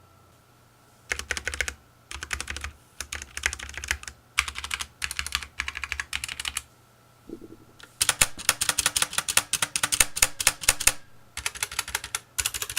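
Typing on a Nixeus Moda V2 tenkeyless mechanical keyboard with brown-type switches, keys clicking in short bursts. After a pause a little past halfway, it picks up into faster, denser typing.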